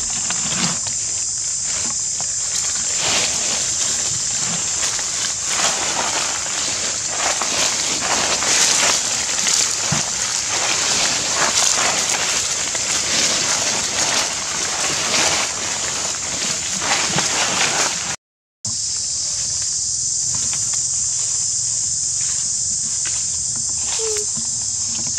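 Steady high-pitched insect drone throughout, with rustling and crunching of dry leaf litter as a macaque moves over it during the first two-thirds. The sound cuts out for half a second about two-thirds in, after which the rustling is quieter.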